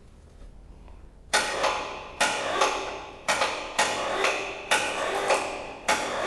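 Sharp metal-on-steel strikes, about ten of them at roughly two a second starting a second in, each ringing on briefly.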